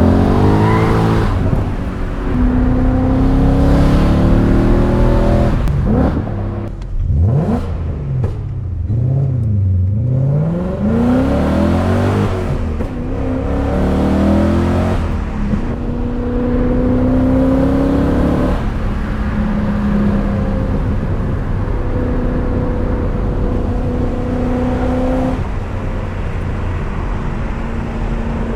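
BMW E39 M5's 4.9-litre S62 V8 driven hard, revs climbing and dropping at gear changes. Several quick rev swings down and up near the middle, then steadier running with a few shifts.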